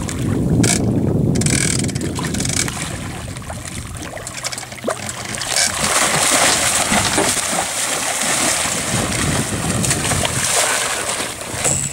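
A hooked blue shark thrashing at the surface against the hull, water splashing and churning, heaviest in the second half.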